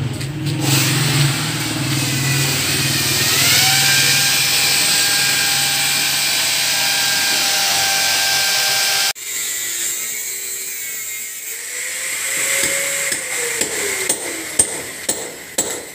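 A power tool running with a steady, hissing whine whose pitch rises a little about three to four seconds in, cutting off suddenly about nine seconds in. After that it is quieter, with a few light taps near the end.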